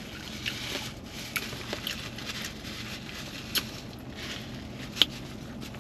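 Close-up chewing of a burrito, with scattered soft mouth clicks and smacks over a faint steady low hum, and one sharper click about five seconds in.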